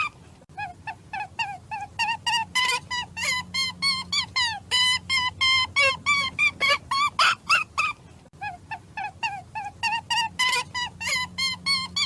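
A rapid run of short, pitched animal calls, several a second, with a faint steady hum underneath.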